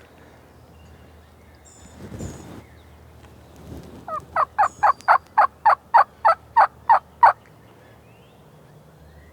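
A loud series of about a dozen turkey yelps, evenly spaced at about four a second and slowing slightly at the end, the kind of yelping series used to call in gobblers. A soft brushing rustle comes about two seconds in, before the yelps.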